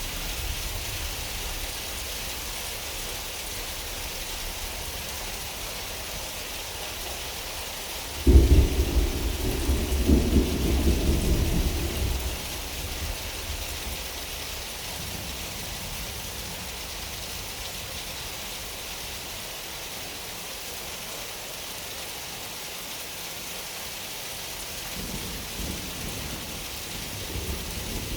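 Steady rain hissing, with a sudden clap of thunder about eight seconds in that rolls on for about four seconds before fading back into the rain; a fainter rumble of thunder comes near the end.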